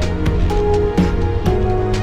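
Background music with a steady beat of about two strikes a second under held melody notes that change every half second or so.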